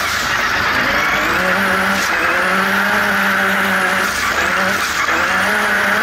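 Turbocharged off-road race buggy's engine pulling hard, heard from inside the cockpit, its note dipping briefly about two and four seconds in as the driver lifts or shifts and then climbing again. A high whistle from the turbo falls with each lift and rises back as it spools up; the engine is running on wastegate spring pressure only, its limp-home boost setting.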